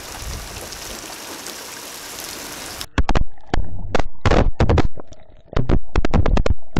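Garden-hose spray hitting a Reolink Argus 2 camera and the siding around it: a steady hiss of water. About three seconds in, the sound is picked up by the camera's own microphone, and the water striking the housing comes through as loud, irregular splats and cracks.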